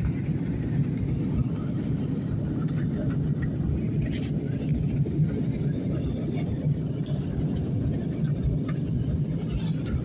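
Steady cabin noise of a jet airliner on its descent, heard from a window seat inside the cabin: the even drone of the engines and rushing air, strongest in the low range.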